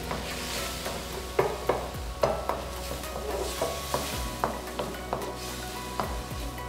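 Diced chicken and bell peppers sizzling in a wok while being stir-fried with a spatula, with a steady hiss and repeated sharp knocks of the spatula against the pan.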